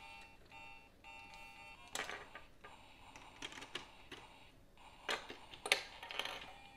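A faint electronic tune of steady beeping tones for the first two seconds, then scattered clicks and rattles of LEGO plastic pieces being handled and pressed together.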